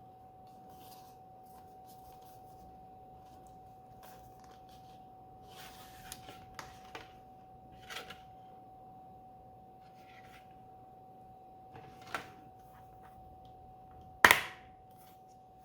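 Plastic Blu-ray disc case being handled: a few soft clicks and rustles, then one sharp snap near the end, over a steady faint high-pitched tone.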